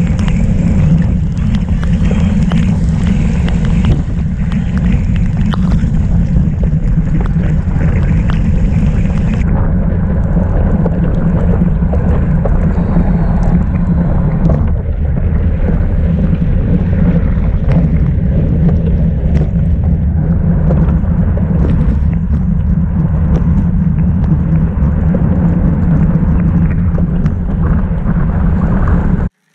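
Heavy wind buffeting on a bike-mounted camera's microphone while riding at race speed on a wet road, a loud, steady rumble that cuts off abruptly near the end.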